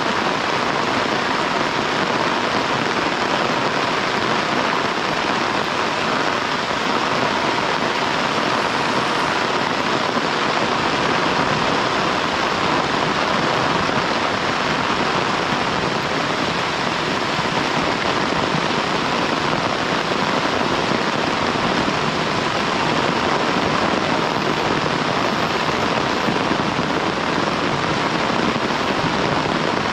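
Heavy rain falling steadily in a continuous, even downpour.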